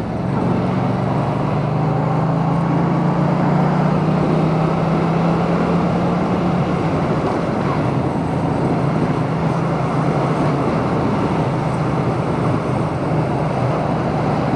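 Steady ride noise of a Yamaha MT-07's parallel-twin engine droning under a constant rush of wind, heard from inside a full-face helmet. The engine drone shifts a little about seven seconds in.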